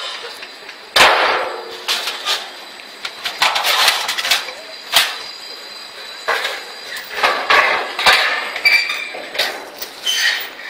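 Irregular metal clanks and bangs, one or two a second, some ringing on after the strike, with a couple of brief high scraping squeals near the end: scrap metal being handled and knocked together.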